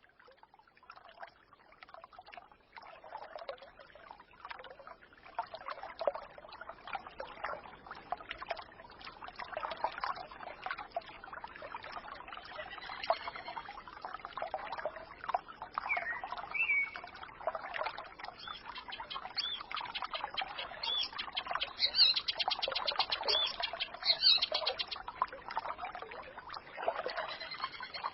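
Small forest stream babbling and trickling over stones, fading in at the start, with songbirds singing over it: a rising chirp near the middle and a fast, high trill of repeated notes near the end.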